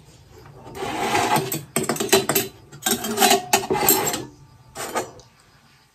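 Forks scraping and stirring curry noodles on steel plates, a run of short rasping, clicking bursts from about a second in, with one last click near the end.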